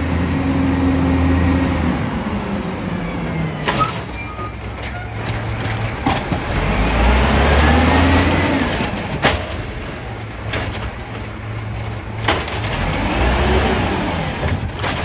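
Volvo WX64 garbage truck's diesel engine running and revving up and down twice, with air-brake hiss and a few sharp bangs.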